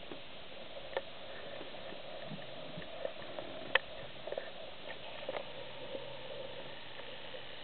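Steady low outdoor background hiss with a few faint clicks and taps; the sharpest click comes about halfway through.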